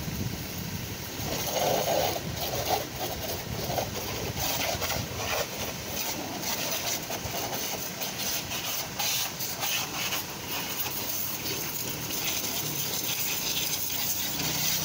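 Jet of water from a hose nozzle spraying onto a motor scooter: a steady hiss with splashing that rises and falls as the spray moves over the bodywork.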